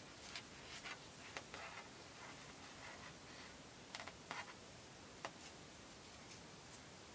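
Faint rustling and small clicks of knotting cords being handled, tucked and pulled through the loops by fingers, over a steady hiss. The handling comes in short clusters in the first two seconds and around four seconds in, with one sharp click a little after five seconds.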